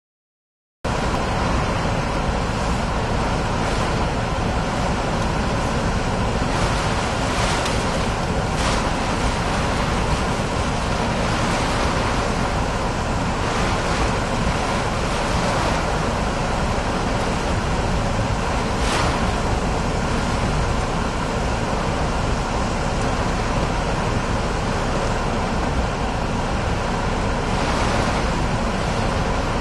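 Hurricane-force wind and driving rain on a moving car, heard from inside the cabin along with tyres on the wet road: a steady rushing noise that starts abruptly about a second in, with a few brief sharper surges.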